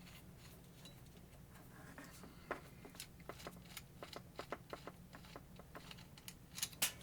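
Faint, irregular small clicks and taps of a rotary tool being handled, its spindle lock and nose cap worked by hand, starting a couple of seconds in and growing a little busier near the end; the tool's motor is not running.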